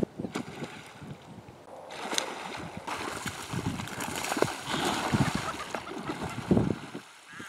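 Water splashing as an American alligator thrashes at the surface with a gar in its jaws: irregular splashes and slaps, busier from about two seconds in.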